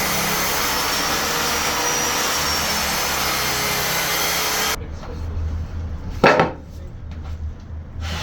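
A power tool working wood, a steady even rasping noise that cuts off abruptly after about five seconds, followed about a second and a half later by one brief loud scrape-like sound.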